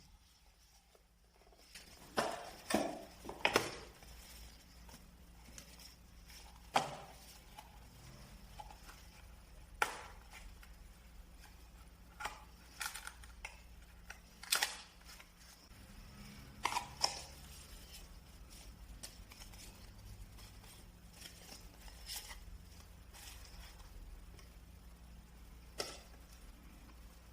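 Unboxing handling noises: irregular sharp clicks and knocks as the speaker's box and packaging are opened and handled, the loudest few coming close together a few seconds in.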